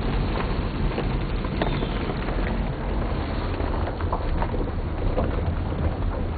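A car driving along a road: a steady low rumble of engine and tyres under an even hiss, with a few faint ticks.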